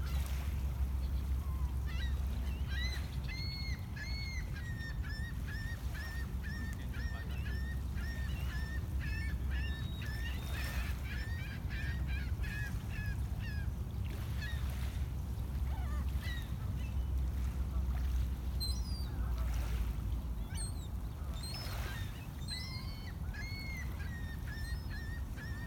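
Gulls calling in a quick run of short, arched cries, about two a second, for some ten seconds, then again near the end, over a steady low rumble.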